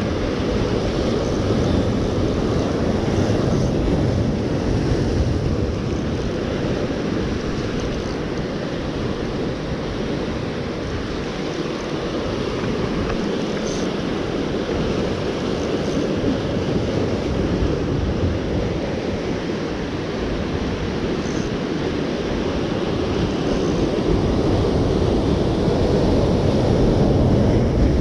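Rough ocean surf breaking and washing over a lava-rock shoreline, with wind buffeting the microphone; a steady rush that grows a little louder near the end.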